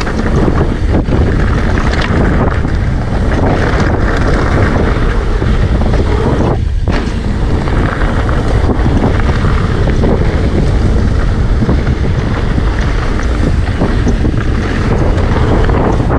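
Wind buffeting the camera microphone, mixed with the rolling rumble of mountain bike tyres on a gravel dirt trail during a fast descent: a loud, steady rush.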